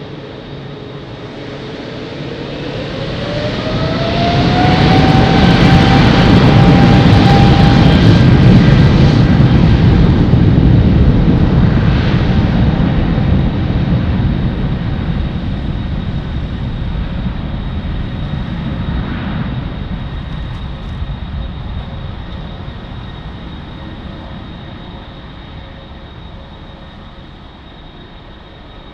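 Boeing 777-200ER's twin jet engines going to takeoff thrust: a whine rises in pitch over the first few seconds as they spool up, and the deep rumble swells to its loudest around five to ten seconds in, then slowly fades.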